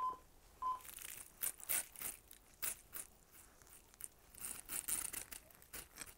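A knife blade forced through a pine cone, its dry scales giving a run of sharp crackles and snaps, used as Foley for a knife tearing through tendons. Two short beeps sound right at the start.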